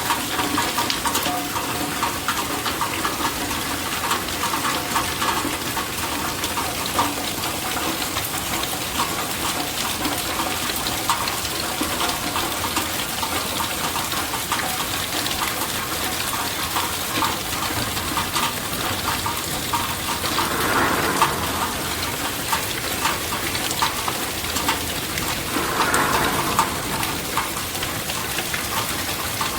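Rain falling steadily: a dense hiss with fine pattering drops. It swells briefly twice, once about two-thirds of the way in and again near the end.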